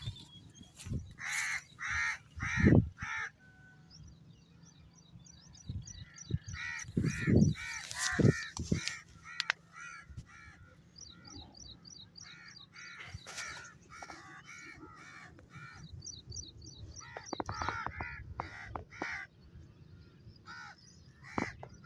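Crows cawing in several bouts of repeated harsh calls, with small birds chirping rapidly and high in the background. A few short low thumps stand out as the loudest moments.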